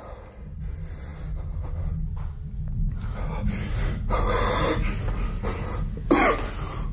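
A person breathing heavily with gasps, shaken by a glass that has just shattered: a long breath about halfway through and a sharp gasp near the end, over a steady low rumble.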